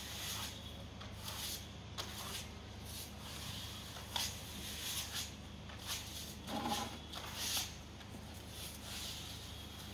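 Plastering trowels scraping wet screed across a cement wall in short, irregular strokes, with a few louder scrapes about four and seven seconds in.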